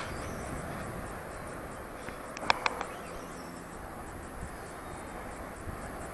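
Steady outdoor hiss at a lakeside pier while a carp is played on a feeder rod, broken by a quick cluster of three sharp clicks about two and a half seconds in.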